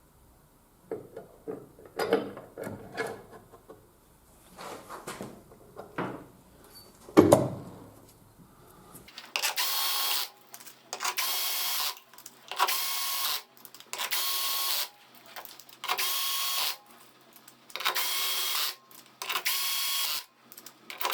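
Metal parts being handled, with scattered clinks and one loud knock, then a power drill/driver running in repeated bursts of about a second each, roughly every second and a half, during reassembly of a scooter's rear gear reduction unit.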